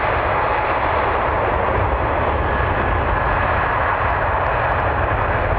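Boeing 777-300ER's twin GE90-115B jet engines running loud and steady as the airliner rolls past on the runway, a constant rumble and rushing noise.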